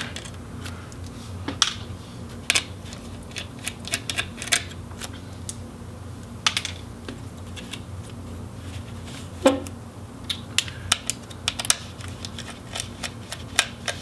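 Small screwdriver turning tiny Phillips screws out of an Oculus Quest 1 headset's internal frame, with scattered light clicks and ticks of the bit and of the plastic and metal parts being handled; the sharpest click comes about nine and a half seconds in.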